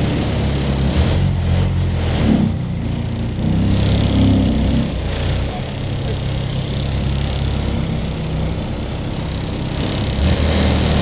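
A small boat's engine running steadily as the boat moves along, its pitch rising and falling a little a few times.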